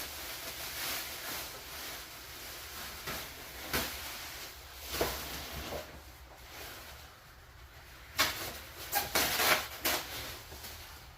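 Packaging and parts being handled: scattered knocks, scrapes and rustles, with a busier run of clatter a little past the middle.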